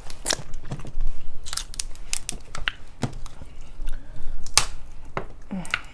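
Eating boiled crab and shrimp by hand: irregular sharp cracks and snaps of crab and shrimp shells being broken and peeled, with chewing between them.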